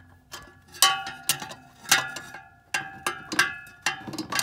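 A large steel wrench and fan-clutch holding tool clanking on the fan clutch hub nut, in about eight sharp metal strikes that each ring briefly, as the seized nut is worked loose.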